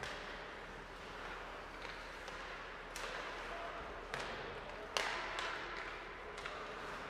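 Sharp knocks and cracks of hockey sticks and puck during an ice hockey game, about five in all, the loudest about five seconds in, over steady rink noise.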